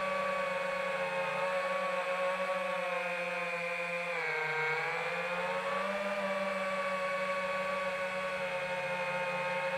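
FPV quadcopter's motors and propellers whining steadily, the pitch sagging for about a second midway as the throttle eases, then rising back.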